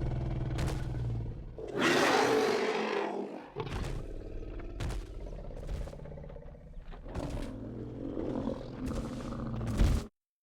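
Ceratosaurus dinosaur sound effect: deep, rumbling growls with a loud roar about two seconds in, followed by more growls that cut off suddenly near the end.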